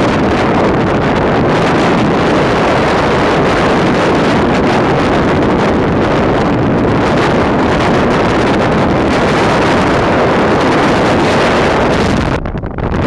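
Strong wind buffeting the microphone: a loud, steady rush of noise that eases and thins near the end.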